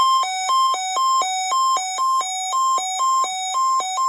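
Weather radio alert tone: a loud electronic beeper alternating between a higher and a lower pitch, about two high-low pairs a second. It sounds for the Required Weekly Test.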